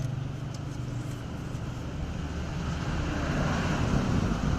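A motor vehicle running: a steady low hum with road-type noise that grows louder about three seconds in.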